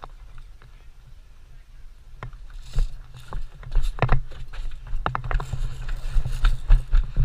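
Irregular knocks, clicks and rustling from a player moving about with gear, thickest in the second half, over a steady low rumble on the microphone.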